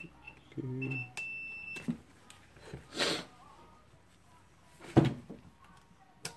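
Multimeter continuity beeper sounding while the angle grinder's switch is tested: a few short high chirps, then a steady high beep lasting under a second, which shows the switch conducts. Handling noise follows, then a sharp knock about five seconds in, the loudest sound, and a short click near the end.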